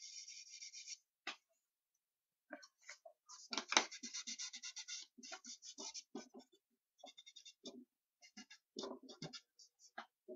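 A charcoal stick scratching across newsprint in quick hatching strokes: two longer runs of rapid scratching, the louder one about four seconds in, and short scattered strokes and taps between.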